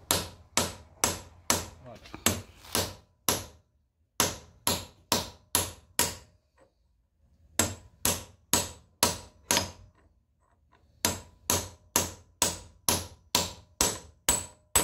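A small hammer tapping lightly on a socket used as a driver, seating a new tapered bearing race into the front wheel hub of a 1950 Farmall Cub. Sharp taps come about two a second, in four runs with short pauses between.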